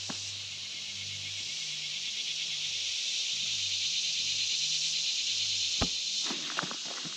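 Steady high-pitched buzzing of a chorus of insects, swelling toward the middle. Near the end come a sharp click and then footsteps crunching on the trail.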